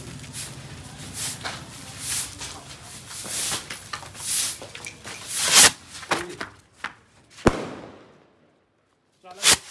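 Three Diwali stick rockets with their fuses lit, sputtering and crackling, then going off with a loud rush about five and a half seconds in. Sharp firework bangs follow, one about seven and a half seconds in and a loud one near the end.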